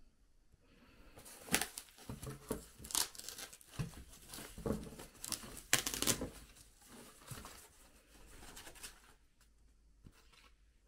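Thin plastic packaging bag crinkling and rustling, with sharp crackles, as a hand pulls a monitor's round stand base out of it; the rustling dies away about nine seconds in.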